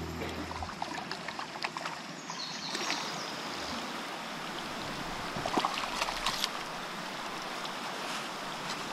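Creek water rushing over a shallow riffle, a steady hiss with scattered small clicks. Background music cuts off within the first second.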